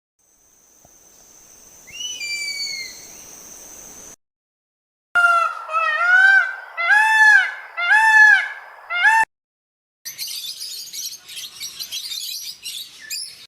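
Goose honking: a series of five loud, arched honks. A clip of high whistling calls with falling pitch comes before it, and a clip of high, noisy bird chatter comes after it.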